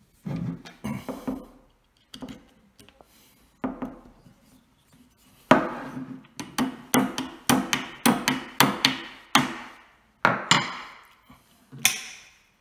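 A small ball-peen hammer taps on a leather strap laid over the steel action of a Martini Cadet rifle. A few softer knocks come first, then about halfway in a run of about fifteen sharp strikes, two to three a second.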